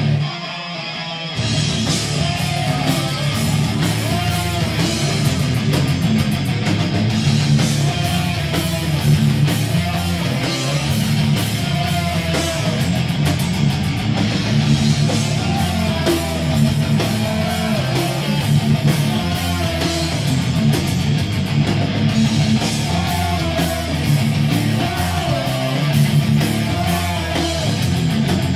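Thrash metal band playing live: distorted electric guitars, bass and drums driving an instrumental riff. After a brief drop just after the start, the full band comes in at a steady loud level about a second in.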